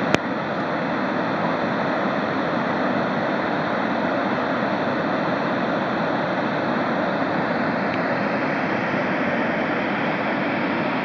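A fumarole steam vent venting steam steadily and loudly in a continuous rushing hiss. A single sharp click comes just after the start.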